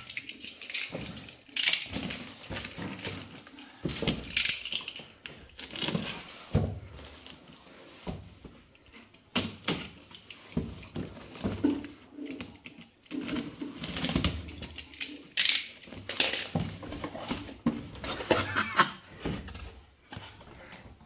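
Packing tape on a cardboard shipping box being slit with a utility knife and torn, with irregular scrapes, rips and rustling of cardboard and plastic as the flaps are pulled open and a boxed item is lifted out.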